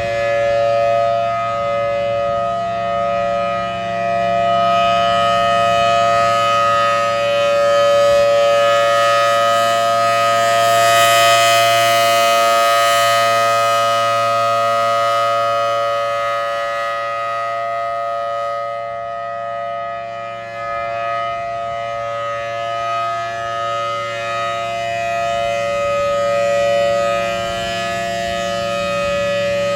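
Federal Signal Thunderbolt 1000AT civil defense siren sounding its steady alert signal: a loud held chord of tones that swells and fades as the rotating horn sweeps toward and away from the listener, with a rush of air hiss at the loudest point.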